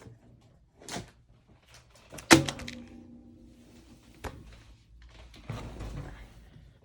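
A loud thunk about two seconds in, ringing briefly, among softer knocks and rustling of things being handled.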